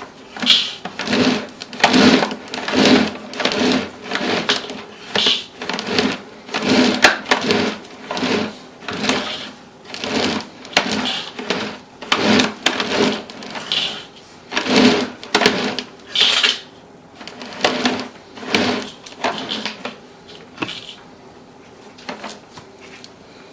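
Sewer inspection camera's push cable being pulled back out of the line in repeated rubbing strokes, a little over one a second, that stop near the end.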